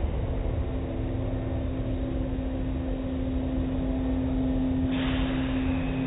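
Automatic tunnel car wash running: a steady motor hum over a low rumble of spinning cloth brushes and water on a vehicle. A higher hiss of water spray starts suddenly about five seconds in.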